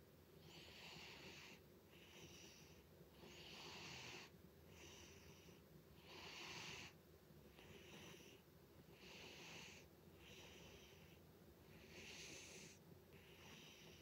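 A sleeping domestic cat snoring quietly: a raspy, wheezy sound on every breath in and out, about five full breaths in a slow, even rhythm.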